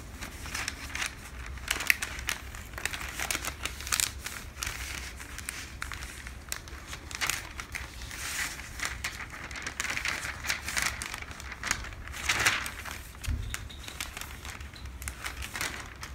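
Sheets of pattern paper rustling and crinkling as they are picked up, turned, folded and pressed flat by hand on the table, with many short crisp crackles.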